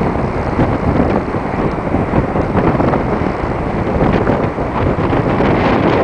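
Wind buffeting the microphone over sea waves washing and foaming against shoreline rocks.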